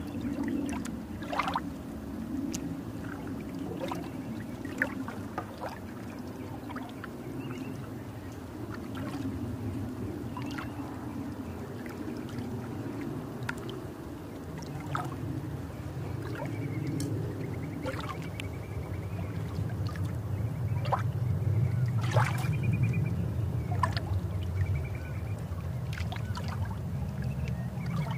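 Small plastic model-kit parts being handled, with scattered light clicks and taps, over a steady low rumbling background noise that grows louder past the middle.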